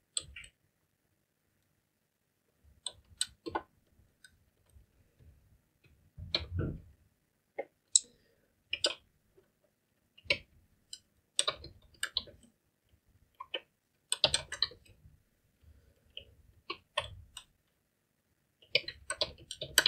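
Computer keyboard keystrokes in short irregular bursts, with pauses of a second or two between them.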